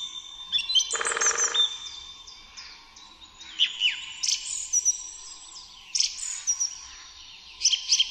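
Songbirds chirping and singing: repeated bursts of short, high chirps and quick descending trills, with a lower call about a second in.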